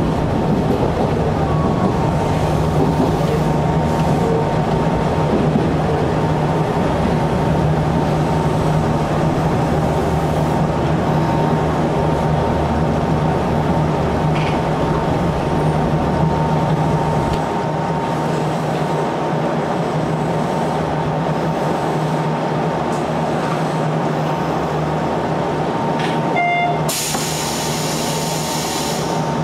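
Sanyo Electric Railway electric train running along the line: a steady rumble of wheels on rail with a constant hum from the running gear. The low rumble eases about two-thirds of the way through, and near the end there is a short tone followed by about two seconds of hiss.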